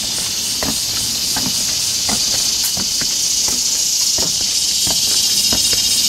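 A steady high-pitched insect drone from the surrounding woods, swelling a little near the end, over footsteps on a wooden boardwalk, roughly one step every two-thirds of a second.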